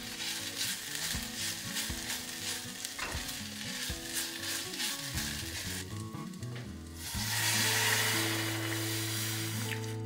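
Sliced onions sizzling in a small stainless steel saucepan, stirred with a silicone spatula in repeated scraping strokes. About seven seconds in, water is poured into the hot pan with a loud rushing hiss.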